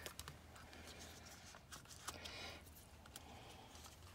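Faint handling noise of a small 1/4-inch socket set: scattered light clicks and rustling as its case is opened and the sockets handled, over a faint low hum.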